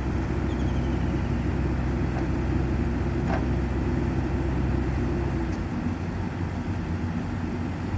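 Heavy diesel engine of an excavator running steadily under load. About five and a half seconds in its low hum weakens and changes pitch, as the engine eases off.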